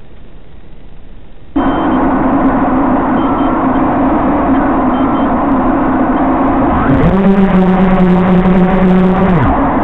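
Brushless motors of an FPV quadcopter (TBS Master Pilot motors) start spinning when it is armed, about a second and a half in, and hum steadily at idle. About seven seconds in the pitch shifts into a stronger, steady hum as the throttle is raised to lift off, and that hum falls away near the end.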